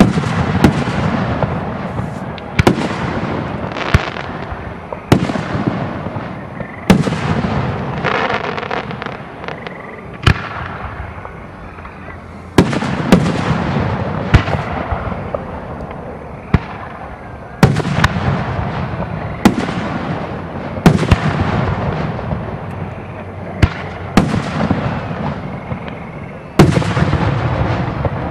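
Aerial fireworks shells bursting one after another, a sharp bang every second or two, each followed by a rumbling echo that dies away.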